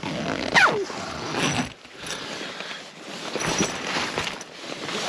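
Close rustling and swishing of nylon fabric and camping gear being handled, in several short bursts, some with a sliding sweep down in pitch.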